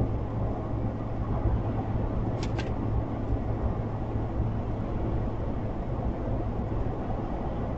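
Steady low vehicle rumble with no breaks, and two faint short clicks about two and a half seconds in.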